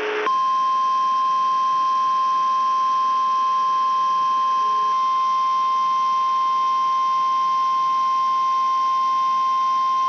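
NOAA Weather Radio 1050 Hz warning alarm tone, sent as part of the weekly test. It is a single steady high beep that starts about a quarter second in and holds unbroken for about ten seconds, heard over a receiver with a background of radio hiss.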